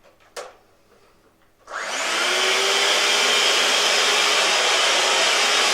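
Two sharp clicks, then a cheap electric food mixer fitted with dough hooks switches on just under two seconds in and runs steadily at speed with a loud whirring motor.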